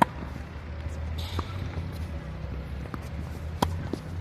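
Tennis ball being struck and bouncing on the court: a sharp loud knock at the start, fainter knocks between, and another strong knock about three and a half seconds in, over a steady low hum.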